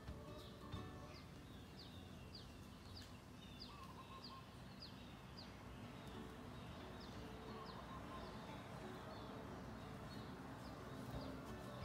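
A hatching duckling peeping faintly from its egg: short, high, falling peeps, roughly two a second, over a low steady hum.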